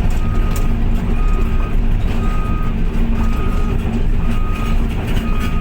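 Reversing or travel alarm beeping steadily, about one half-second beep a second, over a heavy diesel engine running, as the Volvo EC550EL excavator tracks toward its loading platform.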